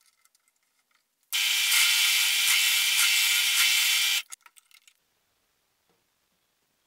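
Drill press running as a twist bit drills through 3 mm steel plate in a machine vise: a steady machine noise lasting about three seconds that starts and stops abruptly. A few light clicks of handling come before and after it, then near silence.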